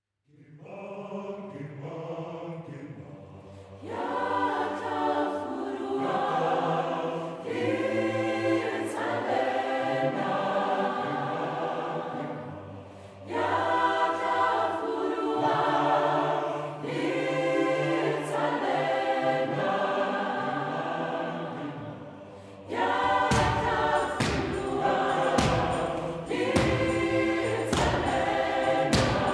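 Mixed choir singing a traditional Setswana sacred song in harmony, with sustained low bass notes under the upper voices. It begins softly and swells into full voice after a few seconds, in phrases with brief breaks. For the last several seconds a beat of sharp thuds joins the singing.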